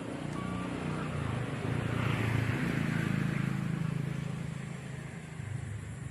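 A motor vehicle passing by: its engine hum swells to its loudest about two to three seconds in, then fades away.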